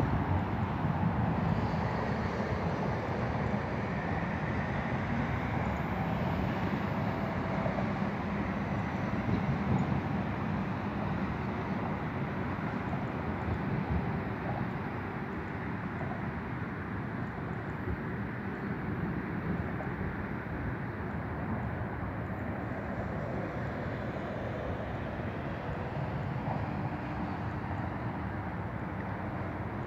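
Steady outdoor ambient noise, an even low rumble with no distinct events, easing slightly about halfway through.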